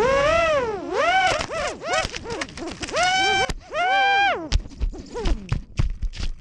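Vortex 250 racing quadcopter's brushless motors whining, the pitch sweeping up and down with the throttle as it rolls and flips. After about four and a half seconds the whine turns choppy, broken by short knocks.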